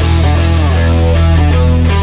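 Rock music with electric guitar, sustained chords changing every half second or so.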